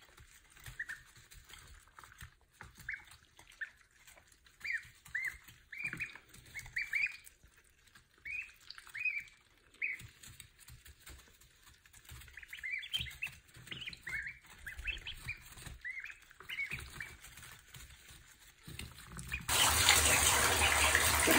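Domestic ducklings peeping: short high chirps that drop in pitch, in scattered runs. Near the end a tap starts running hard into a bathtub, a loud steady rush of water.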